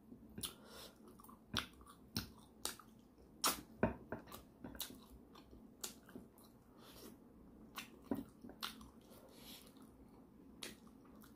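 A person chewing pork leg meat in gravy, with close wet mouth sounds and irregular lip smacks and clicks.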